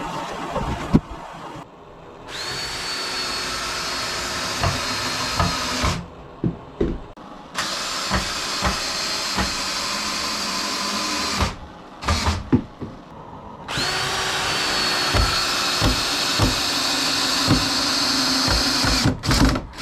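Power drill running in three long runs, each starting with a short rise in pitch and then holding a steady whine, driving screws to fix the 2x6 bottom pieces of a wooden table frame. Knocks of wood being handled and set in place come between the runs.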